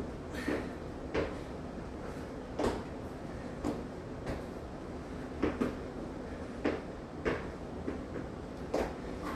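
Feet and hands landing with dull thumps on an exercise mat and rubber gym flooring during burpees and jumps over a partner, about ten irregular thuds, roughly one a second and sometimes two in quick succession.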